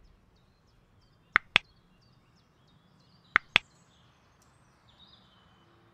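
Two crisp double clicks about two seconds apart, mouse-click sound effects of a subscribe-and-bell button animation, over faint bird chirps in the background.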